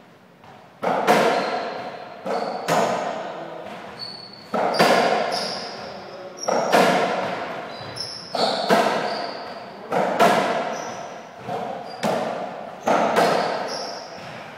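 Softraquet rally: the ball is struck by racquets and rebounds off the court wall and floor, a sharp hit roughly every one and a half to two seconds, often two close together, each echoing in a large hall. Short high squeaks come between the hits.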